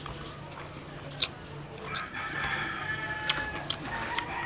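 A rooster crowing: one long, drawn-out call from about two seconds in. A few sharp clicks are heard too, the loudest about a second in.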